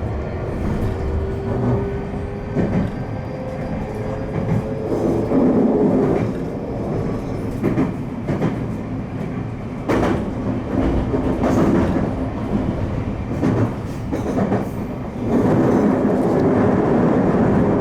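Special Rapid electric train running along the track, heard from inside the leading car: a steady rumble of wheels on rail with irregular clacks over rail joints. A faint whine rises slowly in the first few seconds.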